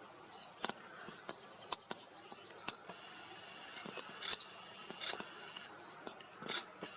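Faint, high chirps and short whistled notes of small birds, over a string of sharp, irregular clicks and ticks.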